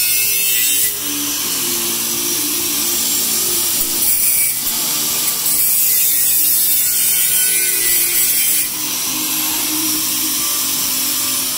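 Electric angle grinder running against a steel piece clamped in a vise, a continuous loud grinding hiss. The sound shifts a few times as the disc bears in and eases off the metal.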